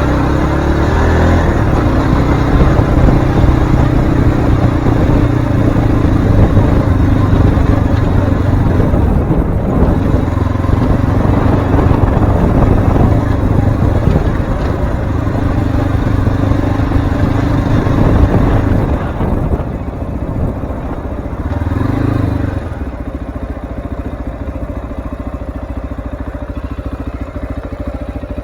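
Cyclone RX3 single-cylinder motorcycle engine running under way, with a steady engine note over rough-track noise. About two-thirds of the way through it eases off and settles to a lower, quieter steady running.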